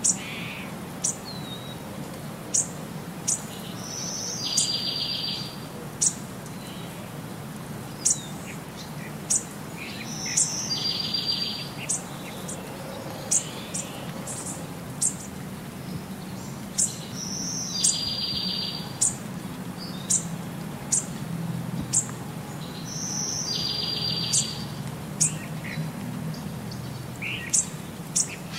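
Looped bird-chirp background track: short high chirps about once a second, with a brief rapid trill that comes back every six to seven seconds, over a low steady hum.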